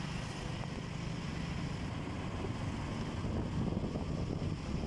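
Steady low engine and road rumble heard from a vehicle as it drives, getting a little louder in the second half.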